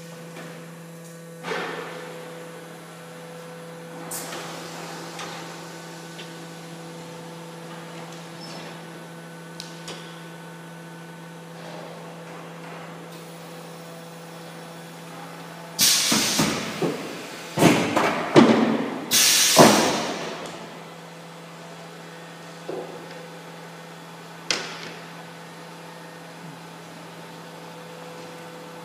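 Steady hum of an automatic L-welding machine for plastic sheet, with a few sharp knocks. About halfway through comes a cluster of loud hissing, clattering bursts, the loudest part.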